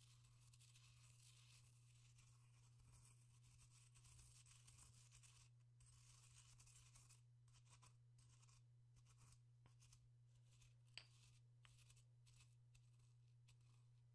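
Faint scratchy grinding and crackling from a mortar and pestle, with many small ticks and one sharper click about eleven seconds in, over a steady low hum.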